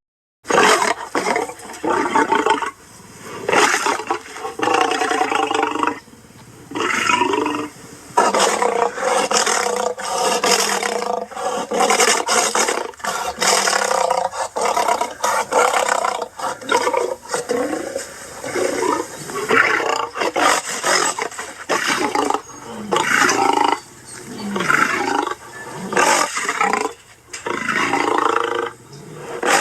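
Big-cat roar and growl sound effects, one after another, each lasting a second or two, with short breaks between them.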